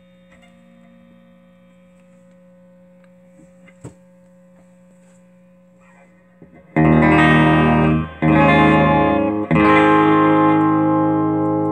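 1994 Gibson Les Paul Special electric guitar through an amplifier: a steady hum and a single click at first, then, about seven seconds in, three loud chords struck in quick succession, the last left ringing and slowly dying away.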